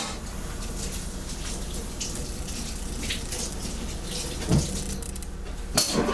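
Steady room background noise with a faint hum, and two soft knocks near the end.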